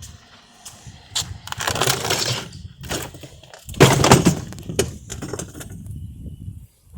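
A dishwasher being smashed apart: two loud crashes of breaking material, about a second and a half in and about four seconds in, the second the louder, among scattered cracks and clicks.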